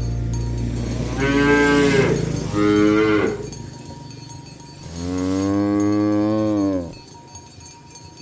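Cows mooing three times: two short moos in quick succession, then a longer, drawn-out moo.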